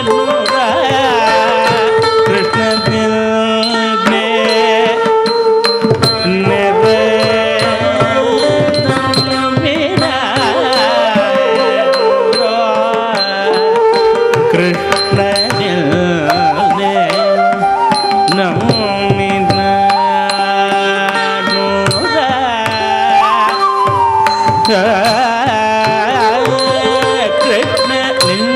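Live Carnatic music accompanying a Bharatanatyam varnam: a gliding melodic line over a steady drone, with regular hand-drum strokes.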